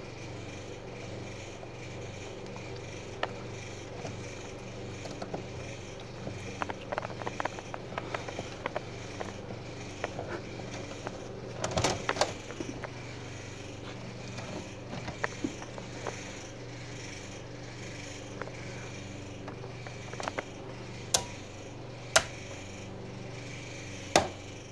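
Scattered clicks and knocks of wires and tools being handled in a metal breaker panel, over a steady low hum, with a cluster of knocks in the middle and a few louder single knocks near the end.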